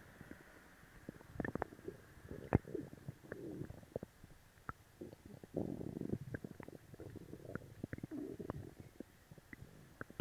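A person's stomach and bowels growling and gurgling after a laxative: irregular bubbly rumbles in bouts every couple of seconds, with many sharp little pops between them.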